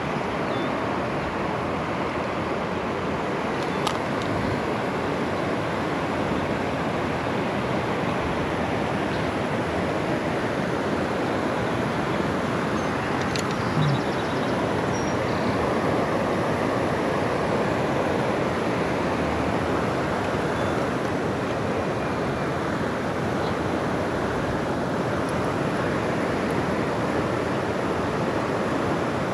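Steady rush of flowing creek water, an even noise without pitch, with a brief knock about halfway through.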